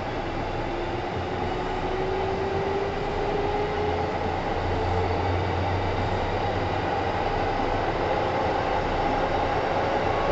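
Kintetsu 1010 series electric train running, heard from inside the car: a steady rumble of running noise with a motor whine that climbs slowly in pitch as the train gathers speed.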